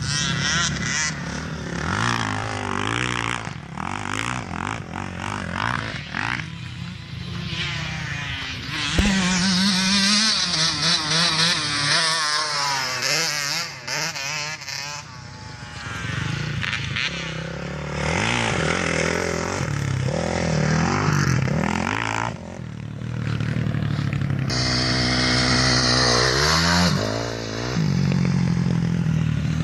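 Motocross dirt-bike engines revving hard and changing gear as they ride the track, their pitch rising and falling over and over.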